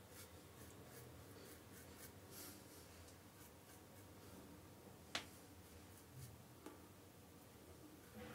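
Near silence with faint, short scratching strokes of a Mühle R41 double-edge safety razor cutting through lathered stubble, barely audible. A single sharp click about five seconds in.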